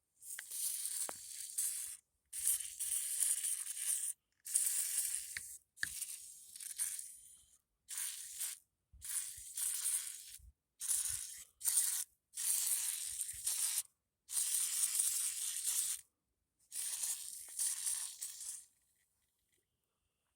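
WD-40 aerosol can spraying in about ten separate hissing bursts of one to two seconds each, with short pauses between them, as the chipper's parts are sprayed down.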